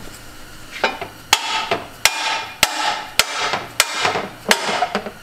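Hammer driving frictionless bushings into the bushing bore of a steel GM stock lower control arm. About seven blows, a little over half a second apart, each ringing briefly.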